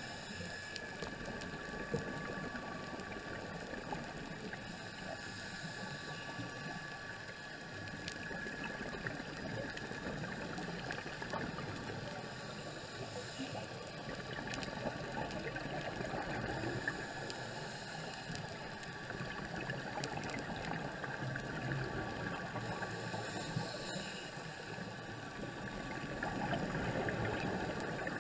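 Underwater ambience during a scuba dive: a continuous gurgling, bubbling wash that swells and fades, with scattered faint clicks and two faint steady tones.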